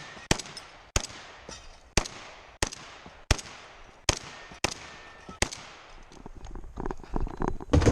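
Rock Island Armory VR-80 12-gauge semi-automatic shotgun fired about eight times, one sharp shot every half second to a second, each with a short ringing tail, followed by lighter clattering near the end.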